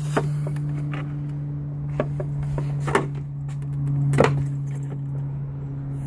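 Plastic tail light housing being handled and pulled off a 2011 Jeep Patriot: scattered clicks and knocks, the loudest about four seconds in, over a steady low hum.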